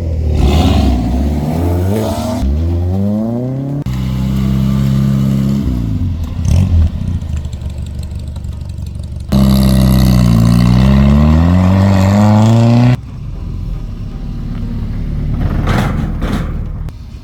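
Car engines revving and accelerating, their pitch climbing and dropping, in several stretches that change abruptly from one to the next.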